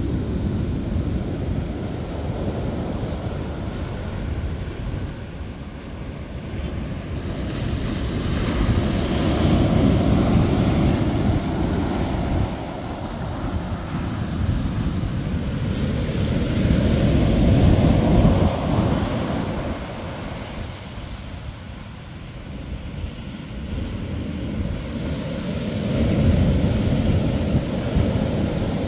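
Ocean surf breaking on a beach: a steady churning rush that swells and ebbs with each set of waves, building to three big crashes, a third of the way in, just past the middle, and near the end.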